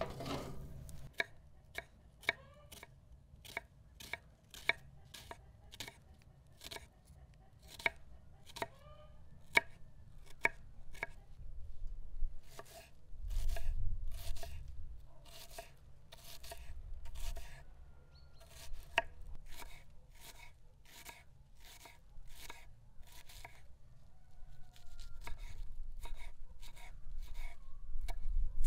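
Knife chopping food on a cutting board in steady, evenly spaced strokes, about two a second.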